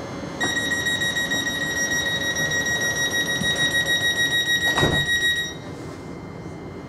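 Door-closing warning on a Thameslink Class 700 train: a steady high electronic tone sounds for about five seconds, pulsing near the end, as the sliding doors close and meet with a thump just before it stops.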